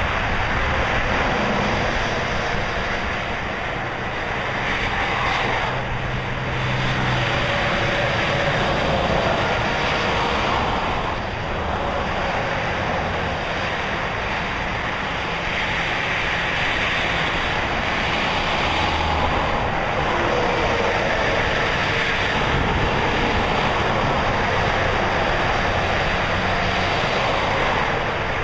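Steady rushing noise that swells and eases slightly but never stops, like a traffic or surf ambience.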